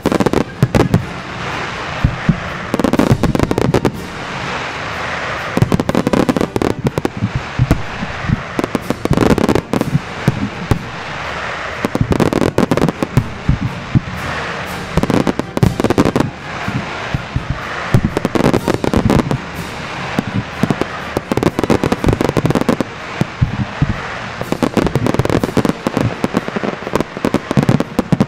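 Large aerial fireworks display: a dense, continuous barrage of shell bursts, several booms a second, mixed with crackle.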